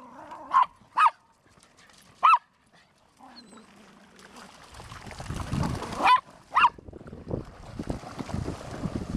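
A dog barking in short, sharp, high barks, three in the first few seconds and two more about six seconds in. From about five seconds in there is a growing rush of splashing as a dog charges through shallow water.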